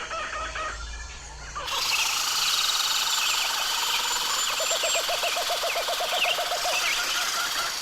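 A chipmunk giving a fast run of low, evenly repeated chuck calls, about seven a second, starting roughly five seconds in, with small birds chirping in the background. A low hum fills the first second and a half before the recording changes.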